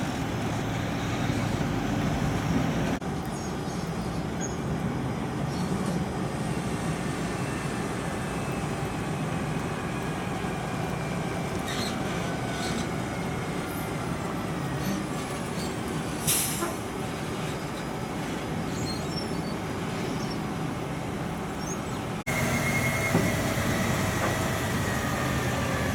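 Heavy loaded logging trucks running past with diesel engines working and tyres rumbling, and faint high whines that fall slowly in pitch, typical of brakes squealing. A brief hiss comes about two-thirds of the way through, and near the end a steady high squeal falls away as a truck rolls onto the weighbridge.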